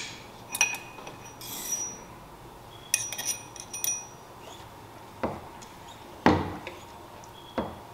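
Light metallic clinks and rattles of the fork oil level tool being handled and set down. Then an Ohlins cartridge fork leg is pumped up and down by hand three times, each stroke a swishing thud. This stroking works the air out of the freshly filled fork oil.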